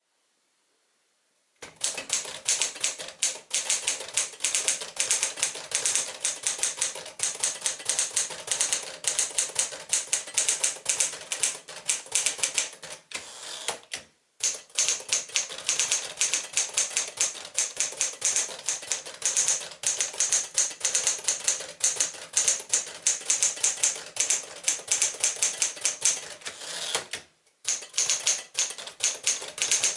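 1954 Smith-Corona Silent-Super manual portable typewriter being typed on: a fast, steady run of key strikes that starts about a second and a half in and pauses briefly twice.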